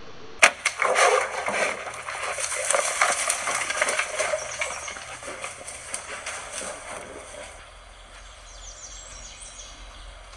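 A recurve bow's shot: a sharp snap of the string about half a second in, then several seconds of loud crashing and cracking through brush and branches, as of an animal running off, fading away by the end.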